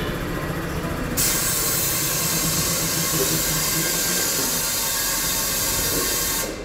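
A low mechanical rumble. About a second in, a loud, even hiss starts abruptly; it holds steady for about five seconds and cuts off abruptly near the end.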